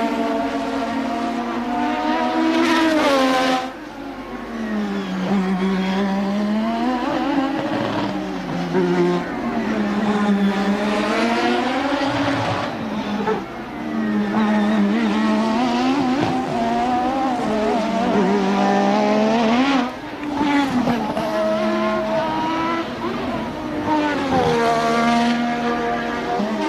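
1988-era Formula One car engines revving hard, the pitch climbing and dropping again and again as the cars accelerate through the gears and brake for corners. There are brief dips in loudness about four seconds in and near twenty seconds.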